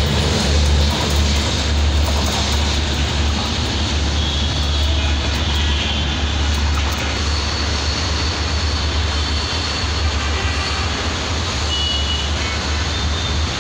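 Silk City Express passenger train running away down the line: a steady low rumble and rushing noise that slowly fades as it recedes.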